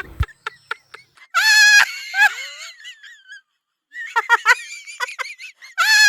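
A chicken calling: two loud, drawn-out squawks, one about a second and a half in and another near the end, with a few short clucks between them.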